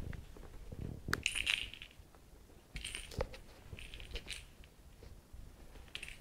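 A cat playing with a fluffy yellow toy on a leather cushion: scattered short bursts of rustling, scratching and light clinking, with a few soft knocks.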